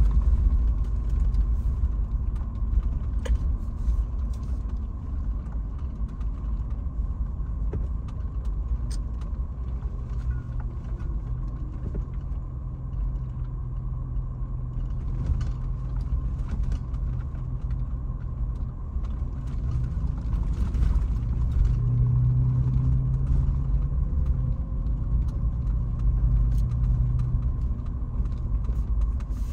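Cabin noise of a Toyota 4Runner TRD Pro driving a rough dirt track: the 4.0-litre V6 runs steadily under a constant low rumble from the tyres and road. Light rattles and clicks come from the interior over the bumps.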